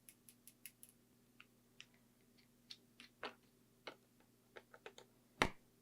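Irregular small, sharp clicks and light taps of small tools and parts being handled in a camera repair, with one louder knock near the end.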